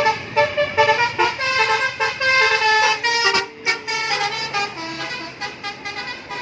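Bus 'telolet' horn, a multi-tone musical air horn, playing a quick tune of short notes that step up and down in pitch. There is a brief break about three and a half seconds in, and it grows quieter near the end.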